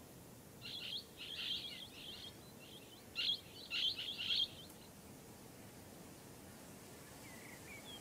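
Blue-headed parrot (Pionus menstruus) calling in two bursts of rapid short notes, one about a second in and another around three seconds in, with one faint note near the end.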